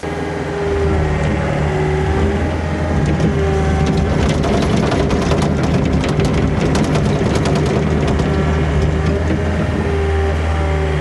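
Excavator's diesel engine running steadily under load, with a dense run of sharp cracks and snaps from about four to nine seconds in: roots and wood breaking as the machine digs around the tree.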